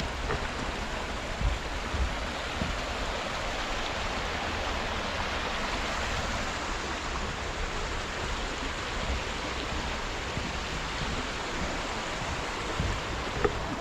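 Steady rush of flowing water, with a few soft low thumps.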